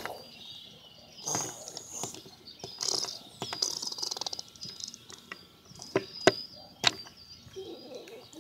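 Small birds chirping, with several sharp clicks of hard plastic toy figures knocking together as they are moved about on a wooden step. The loudest clicks come close together about six to seven seconds in.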